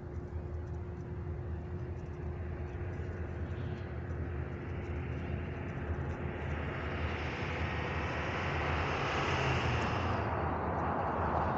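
Diesel locomotive engine running with a steady low rumble that slowly grows louder, with a rising hiss about halfway through.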